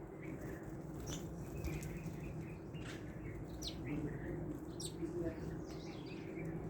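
Wild birds chirping: scattered short, high chirps and quick descending notes over steady low background noise.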